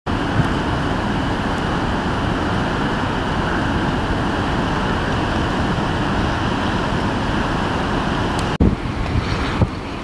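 Strong blizzard wind blowing as a steady rush. It breaks off suddenly near the end and gives way to gustier wind buffeting the microphone.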